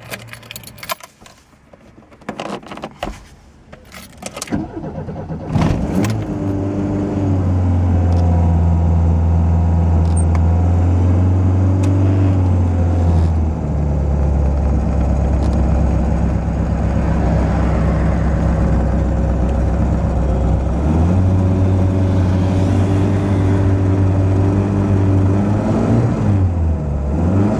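Car keys jangling and clicking in the ignition, then a Dacia car's engine cranks and starts about five seconds in. It runs at raised revs, drops back to idle about halfway, is raised again, and falls back to idle near the end.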